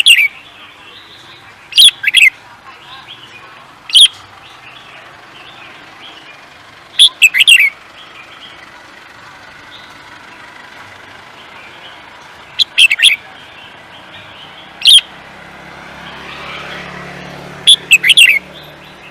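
A songbird singing short, loud, sharp chirping phrases, each a quick cluster of high notes, about seven times with pauses of a few seconds between. A faint low rumble comes in over the last few seconds.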